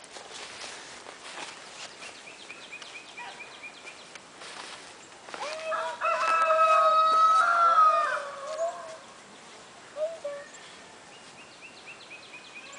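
A rooster crowing once, a long call about six seconds in. Faint rapid high chirping from other birds comes before and after it.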